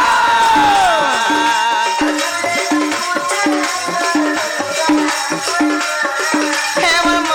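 Sambalpuri danda dance folk music: percussion keeps a steady beat about every two-thirds of a second under a wavering melody line, which slides steeply downward in the first second.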